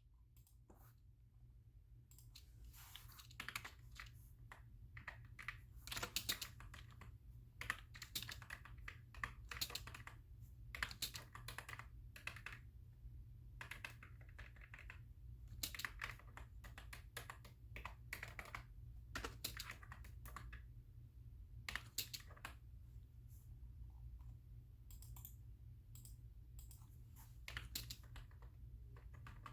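Typing on a computer keyboard: irregular runs of key clicks, starting about two seconds in, over a steady low hum.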